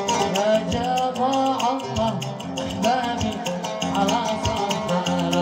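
Live Yemeni wedding song: a male singer's voice winding up and down over a plucked-string accompaniment and an even, driving hand-drum beat.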